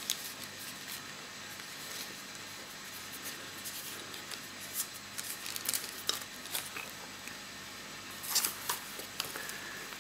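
Paper filter sleeves and a fabric filter pouch rustling as square filters are handled and slid in and out, with scattered light clicks and a louder patch of rustling about eight seconds in.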